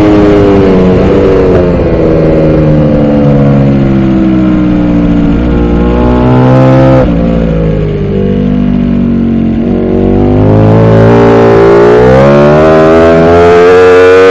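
Ducati V4R's V4 engine heard onboard at racing speed: its high wail drops right at the start and keeps falling in steps as the bike slows into a corner, runs low and uneven through the turn, then rises steadily from about two-thirds of the way in as it drives hard out of the corner.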